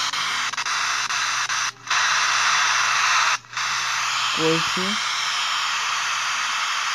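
Static hiss from a Jio Phone's FM radio, played through the phone's speaker, briefly cutting out twice. The radio is picking up no station.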